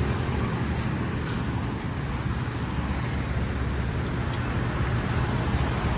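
Street traffic noise, with a vehicle engine running steadily as a low hum under a general roadway hiss.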